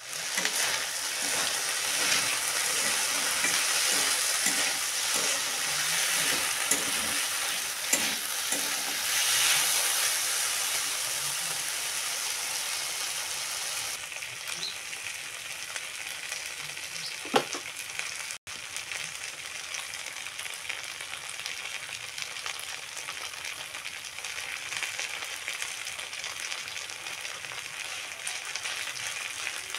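Potato strips and fish roe sizzling in hot oil in a metal wok, with a spatula scraping and stirring through them in the first half; the sizzle is quieter in the second half. A single sharp knock about 17 seconds in.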